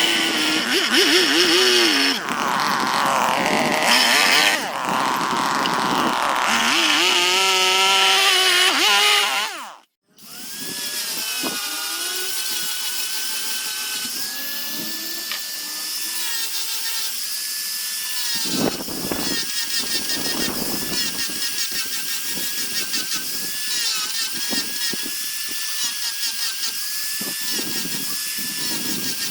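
Small handheld rotary power tool whining as it works wood, its pitch wavering under load. About ten seconds in it winds down to a stop, then starts again and runs with a steadier whine.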